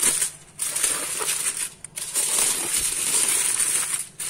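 Aluminium foil crinkling as it is crumpled and pressed down over a bowl, in several stretches broken by short pauses.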